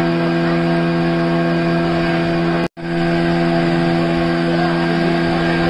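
Motorboat engine running steadily at cruising speed, a constant hum over the rush of water and wind. The sound cuts out for an instant about halfway through, then resumes unchanged.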